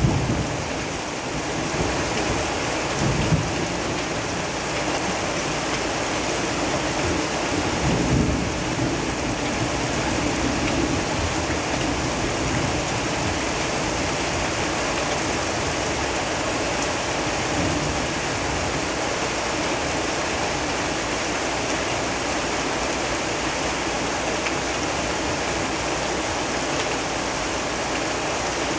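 Heavy rain falling steadily, a dense even hiss, with low rumbles of thunder a few seconds in and again around a third of the way through.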